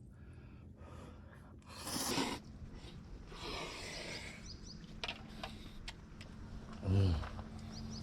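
A person eating hot food: two breathy blows or slurps over the food, a few small clicks, and a short low hum of appreciation about seven seconds in.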